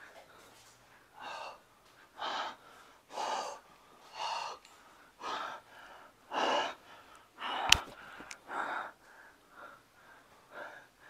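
A person breathing heavily, with rasping gasps in and out about once a second. A single sharp click, the loudest sound, comes about two-thirds of the way through.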